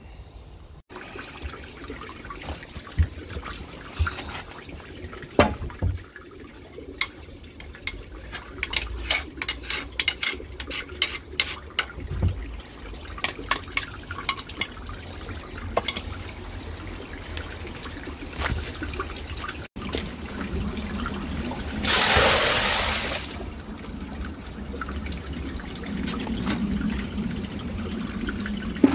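Water running and trickling through the open half-pipe channels of a drain inspection chamber, the drain flowing freely again now that the blockage is cleared. Scattered clicks and knocks sound through the first half, and about 22 seconds in a louder rush of water lasts a second or so.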